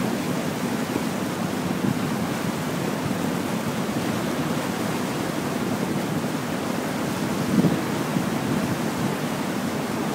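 Steady rush of water along the hull of a moving passenger ferry, with wind buffeting the microphone on the open deck; it swells briefly louder about seven seconds in.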